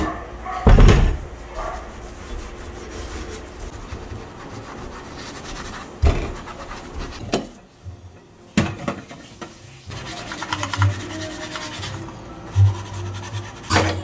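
Metal gas-stove pan supports and burner caps being handled and set down on a stainless steel sink, with a few sharp clanks among scraping and rubbing.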